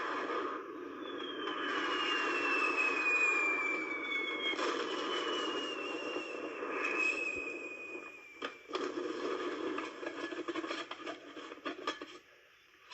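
Rockets hissing, each with a whistle that falls in pitch, two of them one after the other, then scattered sharp crackles and pops.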